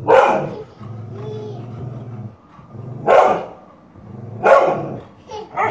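A dog barking four times, in single sharp barks spaced a second or more apart.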